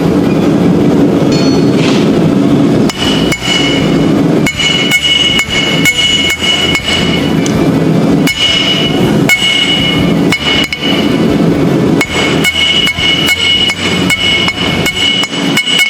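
Hand hammer striking mild steel on a hardy tool and anvil in a steady run of blows, each strike followed by a clear metallic ring. These are half-on, half-off blows that planish and draw out the edge of a forged letter opener.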